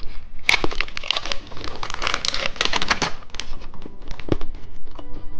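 Plastic snack wrapper crinkling and being torn open: a dense run of sharp crackles, busiest in the first three seconds, then thinning to scattered clicks.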